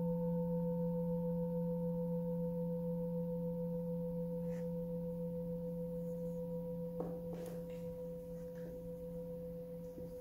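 Hand-hammered Tibetan singing bowl ringing on after a strike: a low hum with a clear higher overtone, slowly fading. A few faint taps come about seven seconds in.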